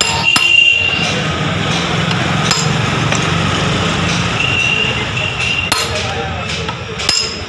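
A few sharp metal clinks from a socket wrench working the bolts on a TVS XL Super 70cc moped engine, over a steady low hum.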